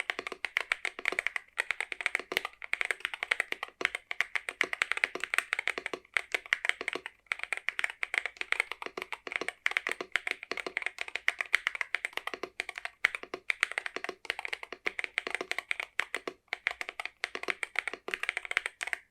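Continuous fast typing on a mechanical keyboard with Dark Warrior heavy tactile switches: a dense run of keystrokes with a few brief pauses, stopping at the very end.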